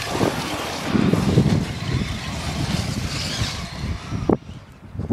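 Radio-controlled truck running over dirt and gravel, a dense rumbling noise, with one sharp knock about four seconds in, after which it goes quieter.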